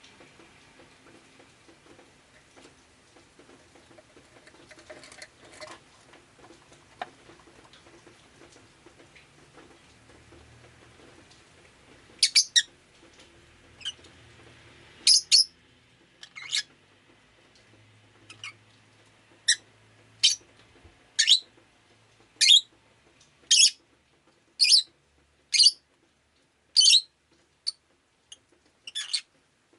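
Peach-faced lovebird calling: after about twelve seconds of faint background noise with a few small clicks, a run of loud, sharp, short chirps starts, repeated roughly once a second.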